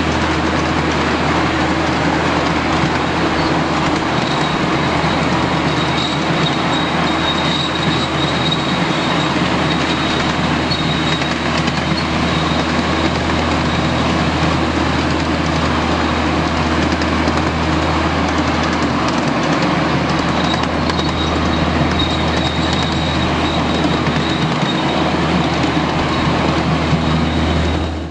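A 7.5-inch gauge ride-on train rolling steadily along its track, heard from the passenger cars: a steady rumble of wheels on rail. A faint high wheel squeal comes in twice, for a few seconds each time.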